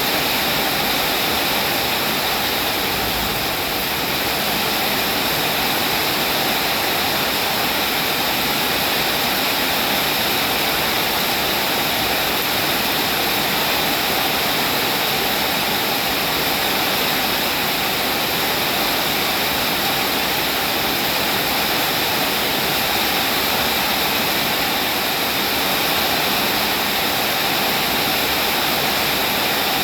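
Steady, even rain hiss of a continuous downpour, with no distinct drips or thunder.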